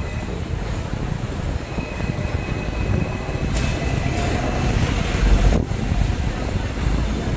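Outdoor city ambience: a steady low rumble with faint steady high tones above it, swelling briefly a little past the middle.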